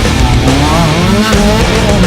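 Heavy rock music with an off-road race car's engine under it, revving and climbing in pitch several times as it accelerates.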